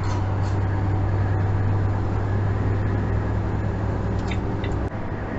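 Steady engine and road drone heard from inside a moving vehicle's cab, with a strong low hum under a hiss of tyre noise. About five seconds in, the sound dips briefly and the low hum weakens.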